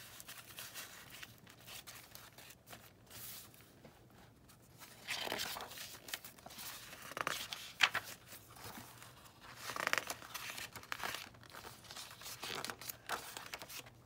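Paper pages of a handmade junk journal, made of scrapbook paper and paper bags, being turned and handled. A quiet start gives way to a series of papery swishes and rustles a second or two apart, with one sharp flick near the middle.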